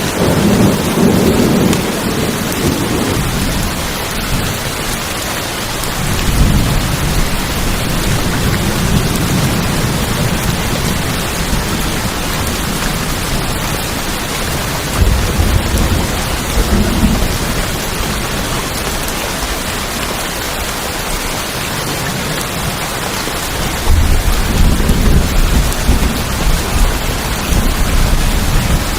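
Steady heavy rain falling on a tin roof, with low rolls of thunder rumbling four times: at the start, about six seconds in, around fifteen seconds in, and again for the last few seconds.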